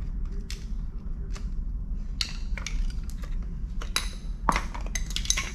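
Irregular metal clinks and clicks of a wrench working on the front-wheel bolts of a Razor Crazy Cart XL, coming more often in the second half.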